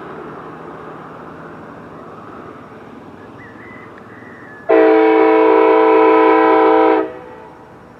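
Diesel locomotive air horn, a Union Pacific SD70ACe-T4's, sounding one loud chord blast of several tones held for a little over two seconds. It starts sharply past the middle and cuts off near the end. Before it, a rushing background noise slowly fades.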